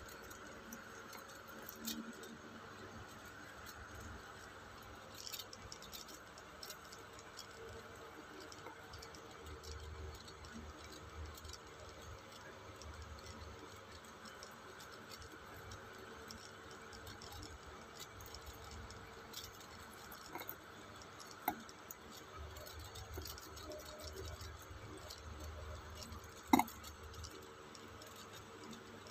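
Faint handling noise of a stainless steel watch bracelet: scattered light clicks and clinks of the metal links as the watch is turned in the hand, the sharpest about three quarters of the way through, over a steady low hum.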